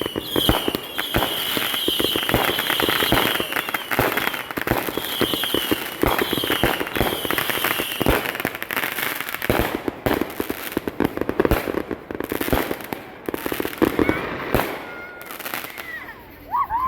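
Consumer fireworks crackling and popping in a rapid, dense stream, with a high warbling whistle that comes and goes over the first half.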